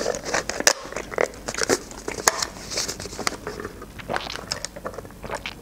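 Close-up sipping of cola through a straw from a paper cup, draining the last of it: a string of small mouth and swallowing clicks with a couple of short airy slurps.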